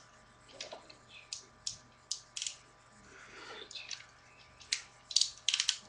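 Plastic clicks and snaps from a Transformers: Dark of the Moon Starscream action figure as its joints and parts are moved by hand. The clicks are irregular, with a quick run of them near the end.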